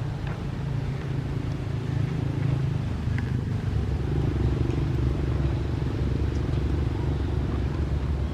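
An engine running steadily, a low drone that gets a little louder about two seconds in.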